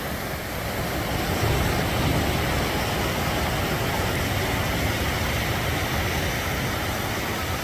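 Ocean surf on a sandy beach: a steady rush of breaking and washing waves that swells slightly about a second and a half in.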